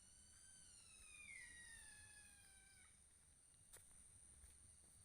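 Faint, drawn-out animal wail, one call of about three seconds that slides slowly down in pitch, followed by a single sharp click.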